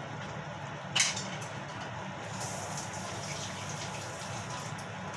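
Chicken curry in coconut milk simmering in a frying pan over a gas burner, a steady bubbling hiss that turns brighter and crackly for about two seconds past the middle. One sharp clack about a second in.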